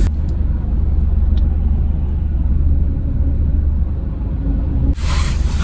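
Car engine idling, a steady low rumble heard from inside the car's cabin. About five seconds in, a louder hissing noise cuts in abruptly.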